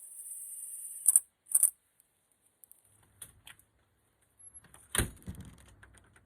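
A door's latch hardware clicking, then the door shut about five seconds in with a sudden knock and low thud as the latch catches in the newly shimmed strike plate.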